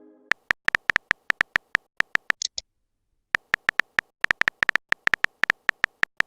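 Rapid run of short, same-pitched electronic beeps, a phone keyboard typing sound effect, broken by a brief high chirp and a short pause near the middle.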